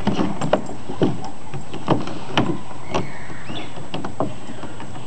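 A black Labrador biting and tugging at the rim of a plastic kiddie pool: the plastic crackles and knocks in a string of sharp, irregular clacks, roughly two a second.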